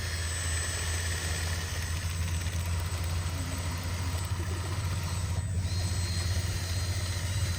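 A motor running steadily with a low, even rumble, without any change in pitch.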